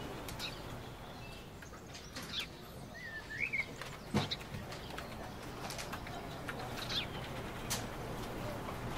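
Outdoor ambience with scattered bird chirps and a short warbling call over a steady low hiss, with one sharp knock about four seconds in.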